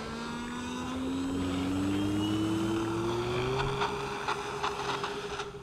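Brushless electric motor and propeller of a Seagull Models Cessna 152 RC plane, an E-flite Power 60 on a 6S battery, throttling up for the takeoff roll. Its whine climbs in pitch for about three and a half seconds, then holds steady, with a few short rattles near the end before it drops away.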